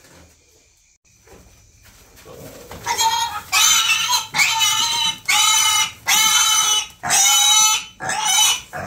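Piglet squealing. After about three fairly quiet seconds comes a run of loud, high-pitched squeals, each about half a second long, coming roughly once a second.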